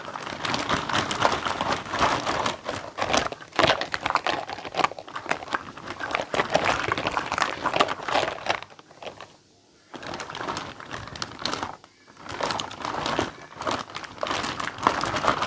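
Packaging of a miniature toy kitchen set crinkling and rustling as it is unwrapped by hand, with a brief pause about nine seconds in.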